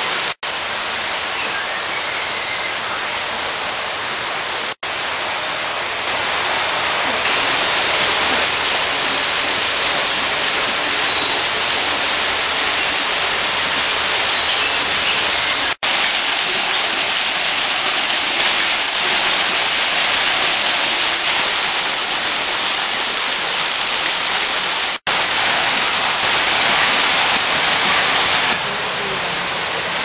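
Steady rushing noise of a waterfall in a tropical bird house. It breaks off for a split second four times, and its level shifts a little after each break.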